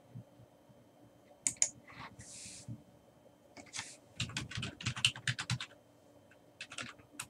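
Computer keyboard typing in short bursts: a few keystrokes about a second and a half in, a quick run of keys from about four to five and a half seconds, and a few more near the end. There is a brief soft hiss a little over two seconds in.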